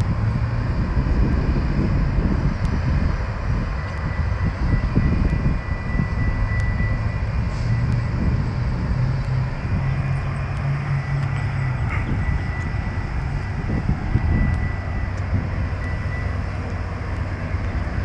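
Metra MP36PH-3S diesel-electric locomotive running as it rolls slowly toward the listener, a steady low diesel rumble. A thin, high-pitched whine comes and goes over it.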